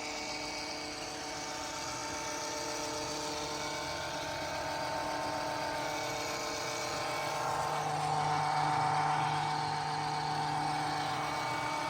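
Car engine idling steadily with a whining hum. It picks up slightly about eight seconds in, then settles.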